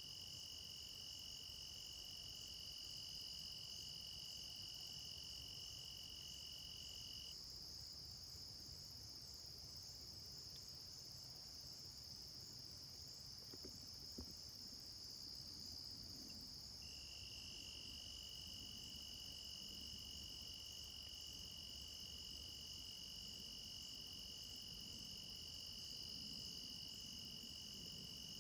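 Crickets and other field insects trilling in a steady chorus: one high continuous trill throughout, and a lower steady trill that stops about a quarter of the way in and starts again a little past halfway.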